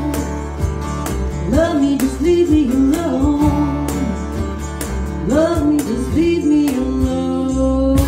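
Live band: a woman singing wavering, held notes over electric bass, drums and plucked strings, ending on one long held note.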